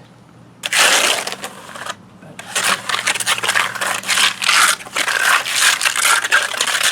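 Steel trowel scraping a gritty cement topping mix across rough concrete. The old mix is lumpy with partly hardened chunks. There is one stroke about a second in, then a longer run of repeated scraping strokes.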